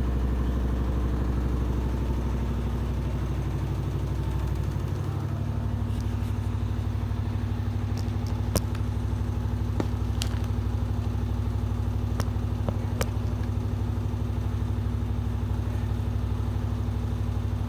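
Washing machine running with a steady mechanical hum whose pitch shifts about five seconds in as the motor changes speed, with a few sharp clicks a few seconds later.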